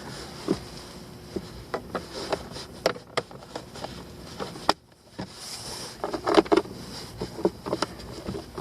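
A series of light clicks and knocks, as of parts and covers being handled and snapped into place. They break off briefly about five seconds in, and a few louder knocks follow about a second later.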